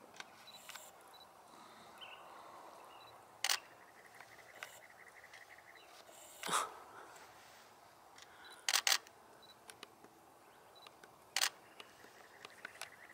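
Camera shutter clicking several times, once as a quick double click, with a short noisy burst just past halfway and faint bird chirps behind.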